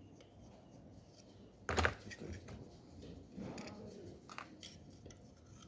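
Handling noises of an e-bike's parts being worked apart by hand: one sharp knock about two seconds in, then scattered light clicks and rustles.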